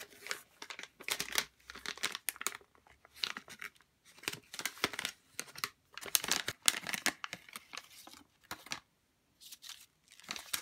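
Plastic and foam packaging crinkling and rustling as it is unwrapped by hand, in irregular bursts with a couple of short pauses.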